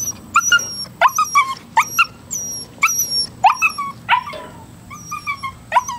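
German Shepherd puppy barking in a run of short, high-pitched yips, in quick bursts of two or three. It is fearful barking at an older dog the puppy is afraid of.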